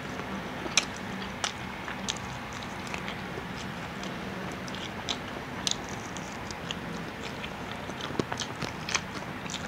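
Close-up mouth sounds of someone biting and chewing a bony piece of fried chicken held in the hands: scattered sharp clicks and smacks, the loudest about a second in, over a steady low hum.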